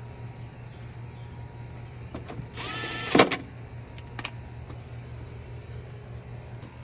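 A small electric motor whirs for just under a second with a rising whine and ends in a sharp clack, followed by another click about a second later, over a steady low hum.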